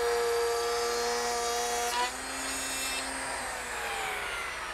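Electric plunge router cutting a groove in a pine frame piece: a steady high whine for about two seconds, then switched off and spinning down with falling pitch.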